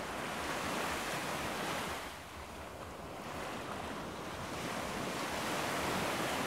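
Sea waves washing onto the shore: a steady rushing that swells about a second in, eases off, and swells again near the end.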